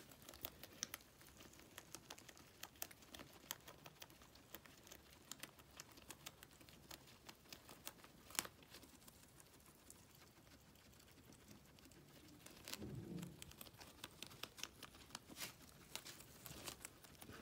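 Guinea pigs chewing and tearing a dandelion leaf: faint, quick crunching clicks, with one sharper click about eight seconds in.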